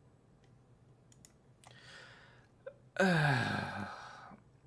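A few faint clicks, then, about three seconds in, a man's audible sigh that falls in pitch and trails off over a second or so.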